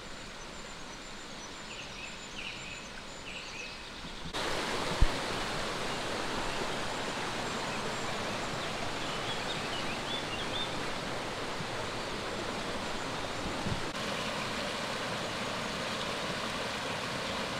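Waterfall rushing: steady, even noise of falling water that suddenly gets louder about four seconds in. Before that, a few faint high chirps; one short thump about five seconds in.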